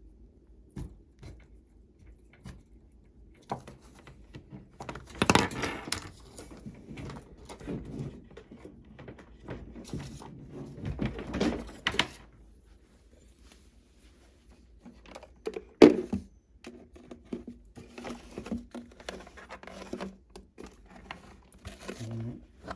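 Cables being handled and re-routed: irregular rustling, clicks and knocks, the loudest a single sharp knock about two-thirds of the way through.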